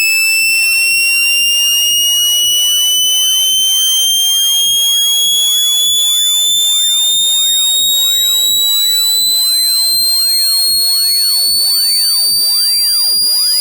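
Electronically generated speaker-cleaning tone: a loud, shrill buzz rich in overtones whose pitch glides slowly and steadily upward. It is played to vibrate a speaker's membrane and drive trapped water out of it.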